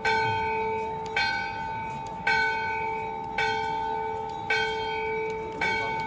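Hindu temple bell struck at a steady pace, about one stroke a second. Each stroke rings on into the next.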